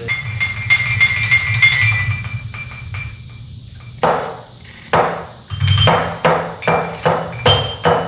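A pitched percussion instrument being struck. Ringing notes with light clicks come first, then a run of separate strikes about twice a second, each ringing at a different pitch.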